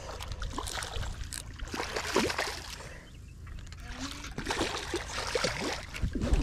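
Water splashing and trickling, in two louder spells: one about two seconds in and one from about four and a half to six seconds.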